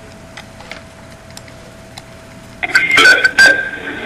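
Faint clicks over a quiet steady hum. About two and a half seconds in, loud playback of a recorded phone call starts abruptly, with the narrow, thin sound of telephone audio.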